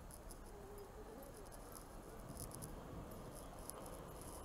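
Faint low rumble of an approaching Z50000 (Francilien) electric commuter train, growing slightly louder, with light high-pitched ticking scattered through it.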